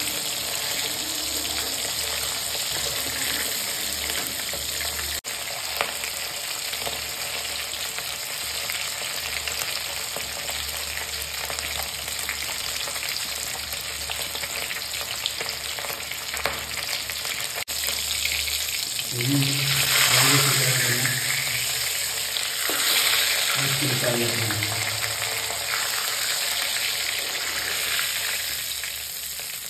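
Rohu fish pieces shallow-frying in hot oil in an aluminium kadhai: a steady sizzle with occasional scrapes and taps of a spatula turning them. The sizzle swells louder twice about two-thirds of the way through.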